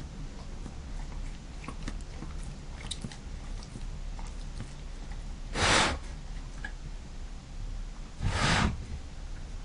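A pet sneezing twice, about five and a half seconds in and again near the end: short, sharp sneezes from something up its nose.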